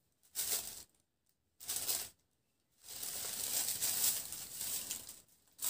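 Saree fabric rustling as it is unfolded and spread out by hand: two short rustles, then a longer rustle of about two seconds.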